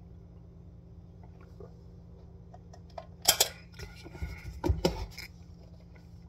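Kitchen items being handled: sharp clatters about three seconds in and a few louder knocks around a second and a half later, over a steady low hum.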